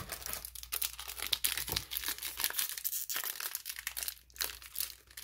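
Foil wrapper of a Flesh and Blood trading-card booster pack crinkling and tearing as it is ripped open by hand: a dense run of fast crackles, with a short lull near the end.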